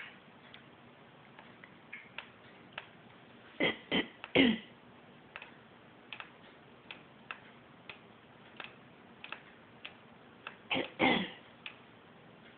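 African grey parrot imitating a human cough: a quick run of three short coughs about four seconds in and another two or three near the end, with soft irregular clicks in between.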